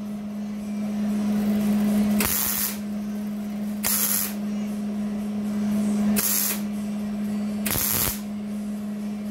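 A wire-feed (MIG) welder stitch-welding a sheet-metal patch panel on a Jeep body. Four short bursts of arc crackle and hiss, each about half a second long, come every couple of seconds over a steady low hum.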